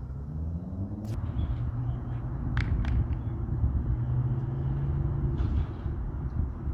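A motor vehicle's engine running nearby, rising in pitch over the first second or so as it speeds up, then holding a steady tone until it eases about five and a half seconds in. A few sharp clicks sound over it.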